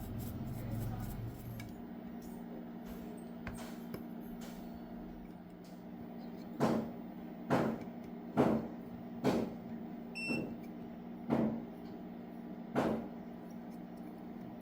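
Steady electrical hum of bench equipment, with seven sharp taps or knocks about a second apart starting about halfway through, and a short faint electronic beep among them.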